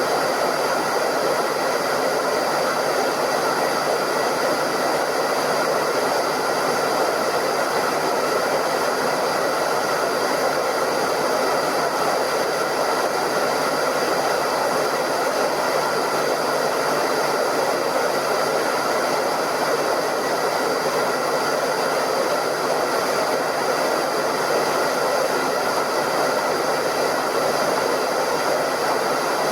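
Hairdryer running steadily: an even rush of blown air over the motor's hum, with a few faint steady high tones, unchanging throughout.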